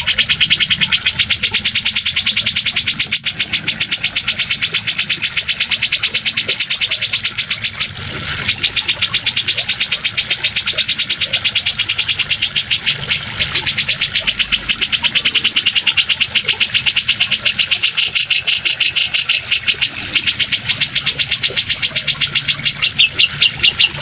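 Cucak jenggot (grey-cheeked bulbul) birdsong looped for bird training: a rapid, evenly pulsed, high-pitched chatter that runs on without a break except a short dip about eight seconds in, over a low steady rush of water.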